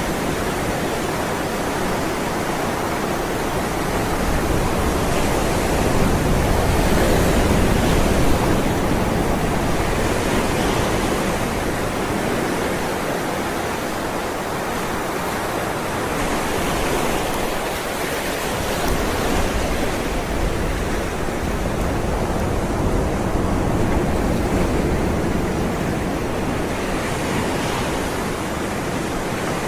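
Ocean waves rolling onto shore as a continuous wash of surf, swelling gently every several seconds.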